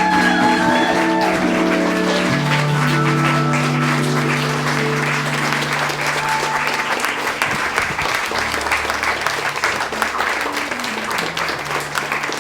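A congregation applauding over instrumental music with long held chords. The clapping grows denser a couple of seconds in.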